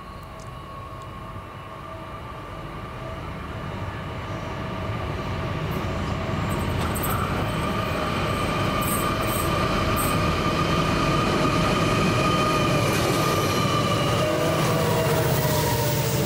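A train approaching, growing steadily louder: a low rumble under several steady whining tones that dip slightly in pitch near the end.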